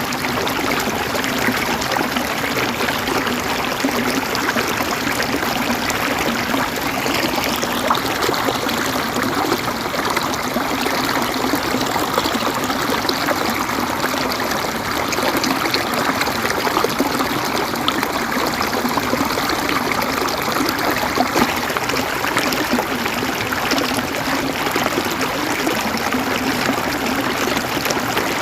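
River water flowing and gurgling over stones, a steady rushing with a trickling, bubbling texture.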